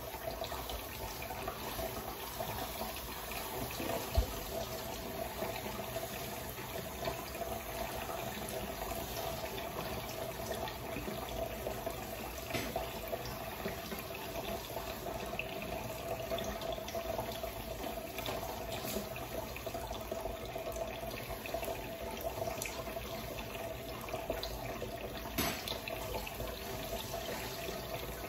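Kitchen faucet running steadily, the stream splashing onto hair and into a stainless steel sink, with a single sharp knock about four seconds in.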